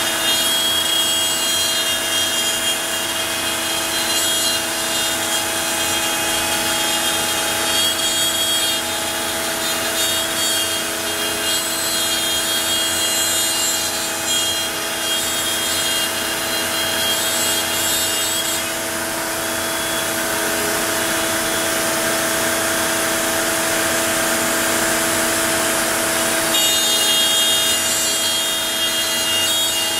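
CNC router spindle running steadily with a whine while its small bit cuts out shapes, the cutting noise swelling and easing as the toolpath changes.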